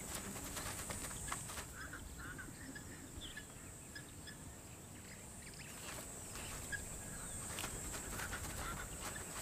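Faint wildlife ambience: scattered short high chirps and a few soft clicks over a steady high-pitched hiss.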